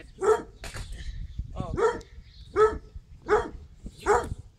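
A dog barking repeatedly in short, evenly spaced barks, about one every three-quarters of a second.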